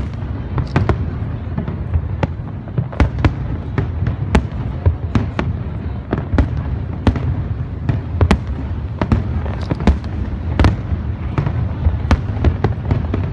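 Aerial firework shells bursting: a fast, irregular run of sharp bangs, a few each second, over a continuous low rumble.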